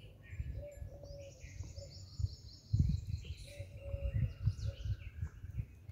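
Muffled, irregular low thumps and scuffs of a Gir cow's muzzle working in loose dry soil close to the microphone, louder from about three seconds in. The cow is eating earth, which the vet presents as a sequel of anaplasmosis. Birds chirp in the background.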